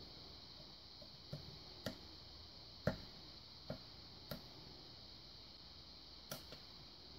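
Pick working the pins of a five-pin Chris Ahrens pin tumbler lock: about seven sharp, irregular clicks as pins are lifted and set, the loudest about three seconds in.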